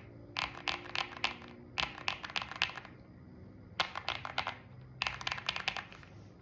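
Greywood V3 mechanical keyboard switches pressed in four quick runs of rapid clacks, with short pauses between the runs.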